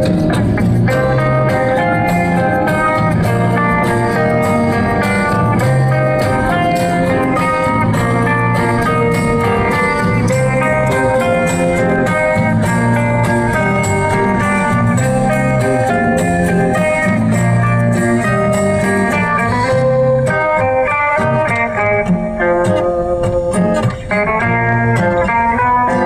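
Instrumental background music led by guitar, with a slow, bluesy feel.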